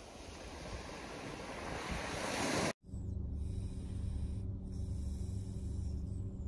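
Small waves breaking and washing up on a sandy shore, growing louder until a sudden cut about three seconds in. Then a steady low drone with a few held tones: a car's running hum heard inside the cabin.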